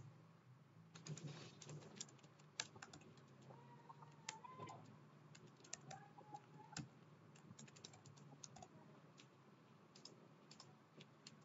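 Faint computer keyboard typing: scattered keystrokes at an irregular pace.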